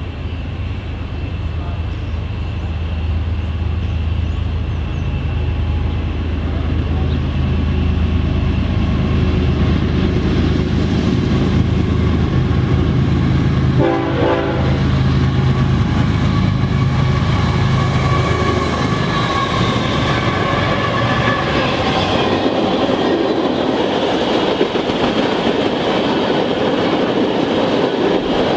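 Diesel freight train passing close by. The locomotives' engines drone steadily and build louder for the first two-thirds. Then the engine sound gives way to the rushing, clattering noise of the railcars rolling past, with some high ringing from the wheels.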